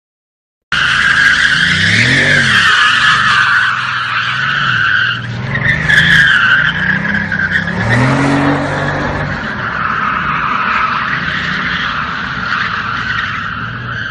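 Car tyres squealing in a long, wavering skid while the engine revs up and down several times, cutting in abruptly about a second in.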